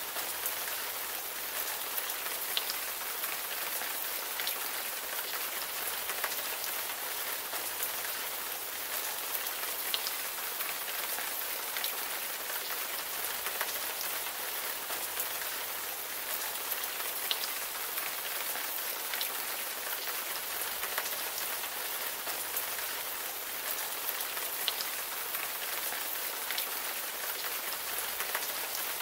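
Steady rain falling: an even hiss with scattered drops ticking through it.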